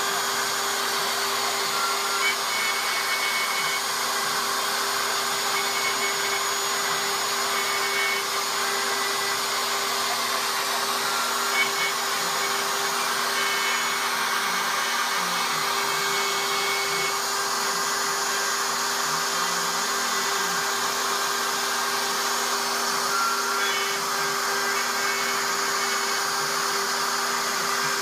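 CNC Shark HD 2.0 router spindle running steadily at high speed while its small bit engraves letters into a board, with short higher tones coming and going as the machine moves.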